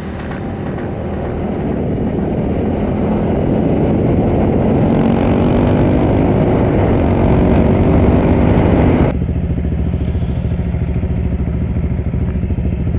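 Husqvarna 701 supermoto's single-cylinder engine under way, with wind rush over the helmet camera, getting louder as the bike speeds up. About nine seconds in the wind noise drops away suddenly and the engine idles with an even pulsing beat.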